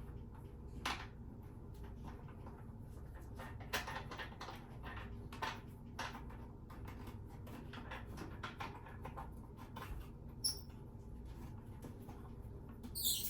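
Toilet-seat mounting bolt and nut being fitted by hand: scattered clicks and small squeaks of plastic parts rubbing and knocking together, with a short high squeak about ten seconds in.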